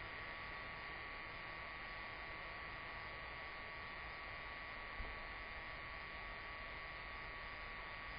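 Steady electrical hum and hiss with a thin, unchanging whine, and one small click about five seconds in.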